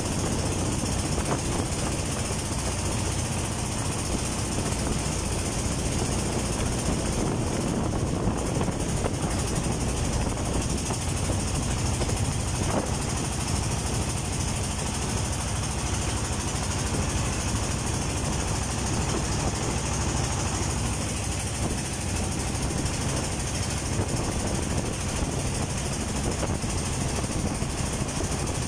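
Engine of a wooden river boat running steadily under way, with an even hiss over it.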